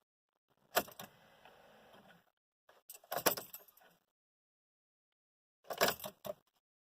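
Ignition key being turned in a 1999 Volkswagen Beetle, making three short bursts of clicks and key rattle, the first followed by a faint steady hum for about a second. No cranking or engine sound follows: the car does not start.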